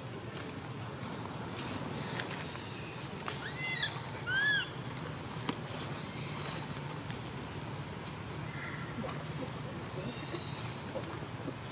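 Infant macaque giving a pair of short, squeaky, rising-and-falling calls about four seconds in, over a steady low hum and many faint high chirps. A sharp high chirp about nine seconds in is the loudest sound.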